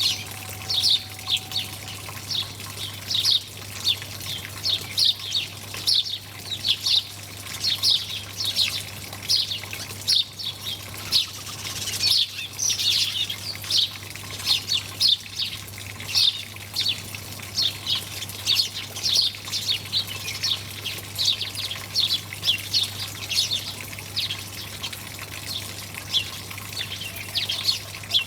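A flock of small birds chirping without pause, many short, quick chirps overlapping one another, over a faint trickle of water and a low steady hum.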